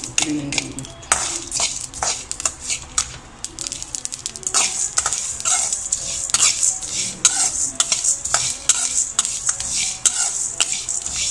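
Metal spoon stirring dry whole spices in a hammered metal kadai as they roast: irregular scraping and clinking of the spoon against the pan, with the seeds rattling.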